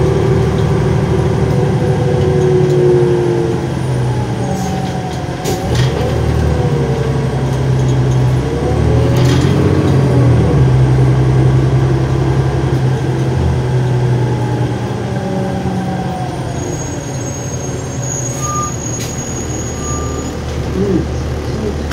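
A 2007 New Flyer D40LF transit bus under way, heard from inside the cabin: its 8.9 L Cummins ISL diesel and Allison automatic transmission running, the engine note rising and falling as the bus speeds up and slows. A few short knocks and rattles come through, and a thin high tone sounds for a few seconds near the end.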